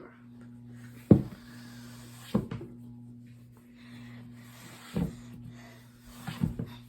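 A few sharp knocks and clunks of objects being handled and set down, the loudest about a second in and a quick cluster near the end, over a steady low hum.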